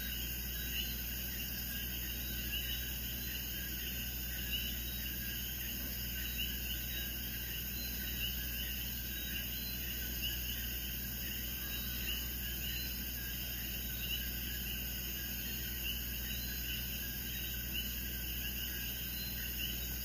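Chorus of coquí frogs calling, a steady dense run of short repeated chirps, over a low steady hum.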